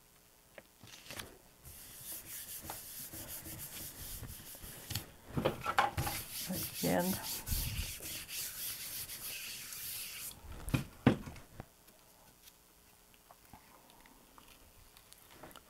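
A round hand baren rubs the back of a sheet of paper in quick, scratchy strokes, burnishing a laser-printed image face down onto the acrylic paint on a gel plate for a transfer. The rubbing stops about ten seconds in and is followed by two sharp taps.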